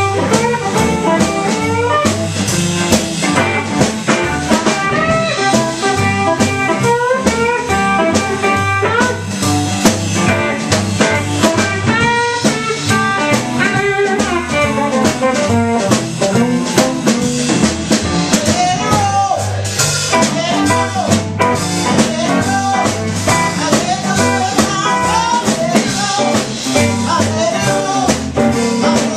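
Live blues band playing: electric guitar over plucked upright bass and drum kit.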